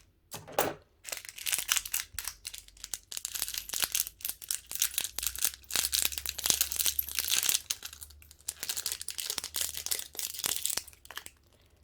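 Crinkling plastic packet and small plastic pieces clicking: googly eyes being shaken out of their packaging into slime, a dense run of quick crackles that stops just before the end.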